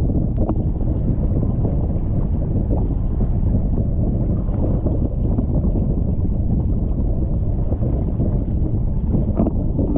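Wind buffeting a board-mounted camera's microphone on a foiling windsurf board, with water rushing past below; a steady, loud, mostly low rush.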